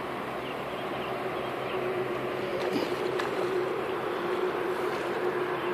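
Steady rush of a fast-flowing river, with a steady low hum running under it and a couple of faint ticks near the middle.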